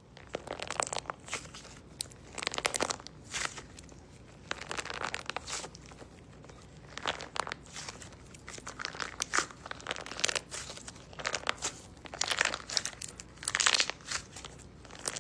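A squishy fidget toy squeezed and kneaded by hand, giving repeated crinkling, crunching crackles in irregular bursts, some brief and some lasting about a second.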